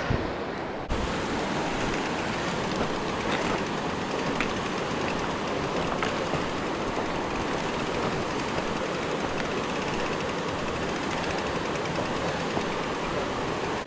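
Mountain bike rattling over a rough trail while riding, with a steady rush of air and ground noise that starts abruptly about a second in.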